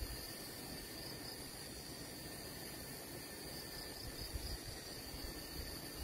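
Steady high-pitched insect chorus, a continuous trill that does not change, over an uneven low rumble.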